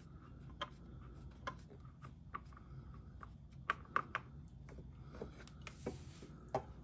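Faint, irregular light ticks and clicks, about ten, with a few close together near the middle: oil dribbling from the scooter's oil filter mount into a catch pan.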